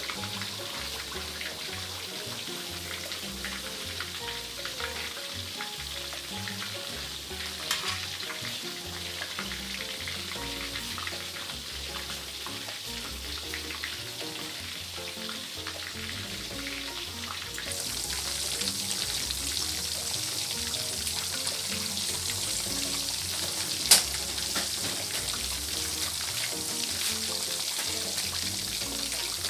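Battered chicken leg pieces deep-frying in a wok of hot oil: a steady crackling sizzle that gets louder about two-thirds of the way through. A metal spoon knocks against the pan twice, lightly a few seconds in and sharply near the end.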